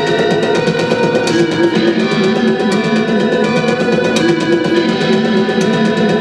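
Electric guitar played live with fast, steady picking, sustained ringing notes layered over a rhythmic pattern that repeats about every three seconds.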